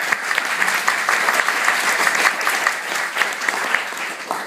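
Audience applauding, a dense clatter of many hands clapping that thins out and fades near the end.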